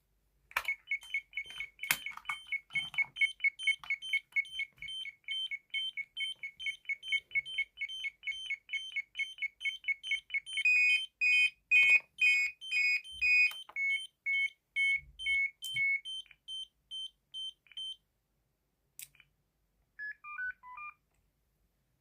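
Electronic buzzers on a security and fire alarm panel stand beeping: a fast beep, about four a second, alternating between two high pitches, joined for about five seconds by a louder, slower beep at a lower pitch, before both stop. Near the end a few short falling tones, like keypad confirmation beeps, and occasional clicks.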